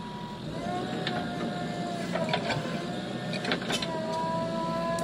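JCB 3DX Plus backhoe loader working, giving a steady two-note whine that sets in about half a second in, with several sharp knocks through it.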